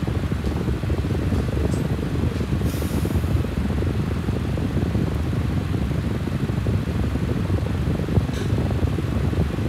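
Steady low rumble of an electric fan running, with a couple of faint clicks from objects being handled.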